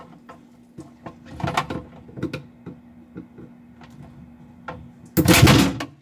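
Plastic clicks and knocks from handling the clipped-in control-panel housing and its wire connector in a refrigerator ceiling, then a loud plastic clatter lasting under a second near the end as the housing comes down.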